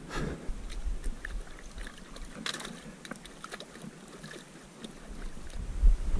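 Footsteps and trekking pole tips clicking on stones of a rocky mountain path, irregular taps throughout. Wind buffets the action camera's microphone, swelling to a low rumble near the end.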